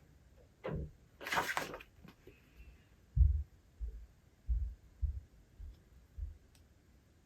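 A book page turning with a short papery rustle about a second in, followed by a run of about seven soft, deep thumps at uneven spacing.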